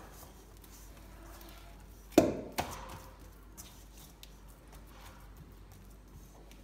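Hands patting and working an oiled ball of flour dough in a steel mixing bowl: faint soft pats and rustles, with one sharp knock on the bowl about two seconds in that rings on briefly.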